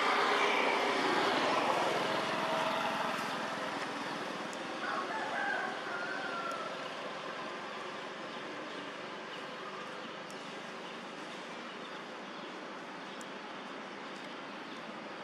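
A long crowing animal call lasting about three seconds at the start, then a shorter, higher call about five seconds in, over a steady background hiss.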